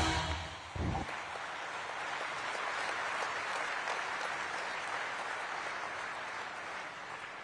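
A large seated audience applauding, steady clapping that slowly fades. Music dies away in the first second, with a brief low thud about a second in.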